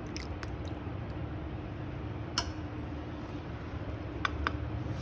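A few small clicks and taps of dishes being handled, the sharpest about halfway through, over a steady low hum.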